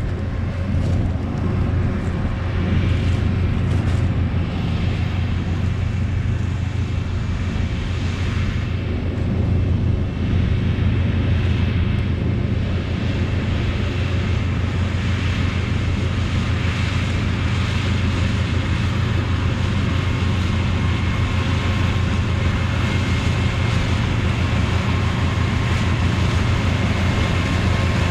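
Oxbo 8430 ear corn picker running steadily while harvesting: a constant low engine drone under an even wash of machinery noise.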